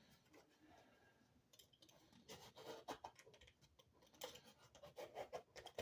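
Faint, scattered clicks and scratches of insulating paper and small parts being handled and worked by hand.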